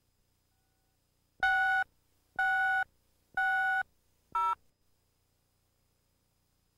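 Electronic countdown beeps on a videotape commercial slate: three steady beeps of the same pitch about a second apart, then a shorter beep at a different pitch.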